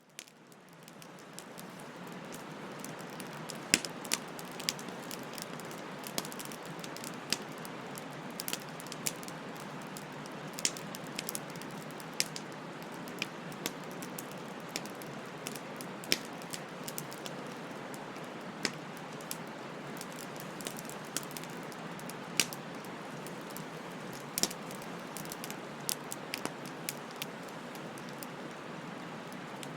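Wood fire burning, a steady hiss with sharp crackles and pops at irregular moments. It fades in from silence over the first couple of seconds.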